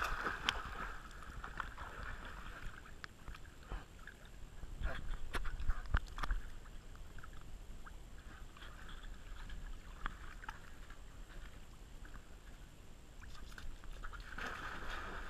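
Pool water splashing and lapping as dogs wade and one jumps in near the end, heard muffled through a waterproof camera housing at the water's surface. Scattered sharp clicks and knocks sound through it.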